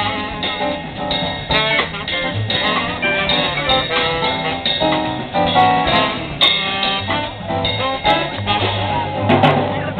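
Live jazz combo playing: a guitar carries the melodic line over piano, upright bass and drum kit.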